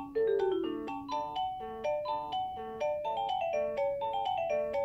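Electronic lullaby tune playing from a baby's nightlight soother toy: a simple melody of short chime-like notes, several a second, with quick stepping runs near the start.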